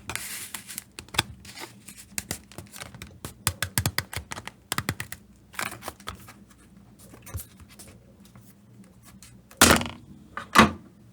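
Leather being handled: a run of light taps, clicks and rubs, then two louder short scuffs, about a second apart, near the end.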